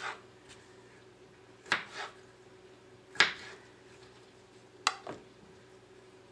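Kitchen knife slicing through a peeled cucumber and striking a plastic cutting board: a sharp knock with each cut, about every second and a half. A faint steady hum runs underneath.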